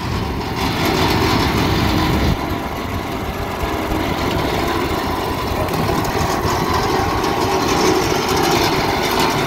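Yardmax tracked power barrow's small gasoline engine running steadily while the machine crawls along on its rubber tracks, in third, its highest and fastest gear.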